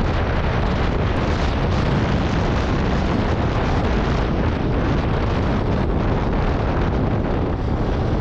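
Wind buffeting the microphone while riding a Yamaha R15 V3 sport bike at about 60 to 75 km/h: a dense, steady rushing noise with the bike's engine lost under it.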